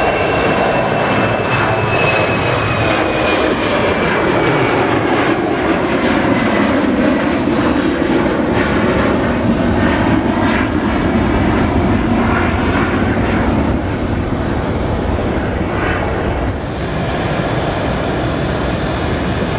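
Large jet airliner climbing out at takeoff power just after lift-off: loud, steady jet engine noise. A high fan whine slowly falls in pitch over the first few seconds, and the sound eases slightly near the end.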